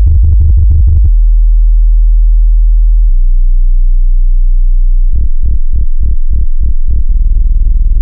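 Loud synthesized deep bass tones: fast pulsing bass for about the first second, then a steady low drone, then about seven separate bass pulses from about five seconds in, ending in a steady low tone.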